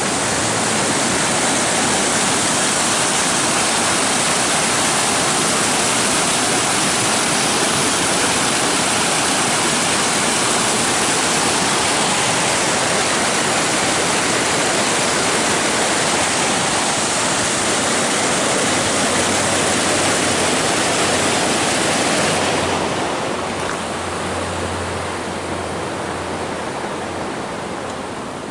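Whitewater of a rocky mountain creek rushing over boulders: a loud, steady rushing that gets somewhat softer about 22 seconds in. A low hum joins it in the last several seconds.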